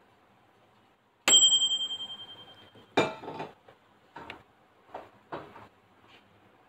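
Microwave oven's timer bell dings once, a bright ringing tone that fades out over about a second and a half. About a second and a half later comes a clunk, followed by a few lighter clicks and knocks.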